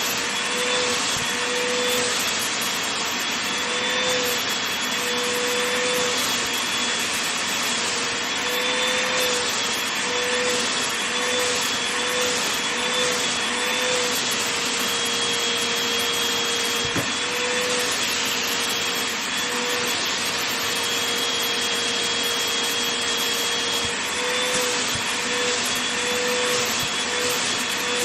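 Vacuum cleaner running over a blanket, a steady rushing hum with a motor whine. The whine wavers briefly up and down as the nozzle moves across the fabric, then holds level for several seconds in the middle.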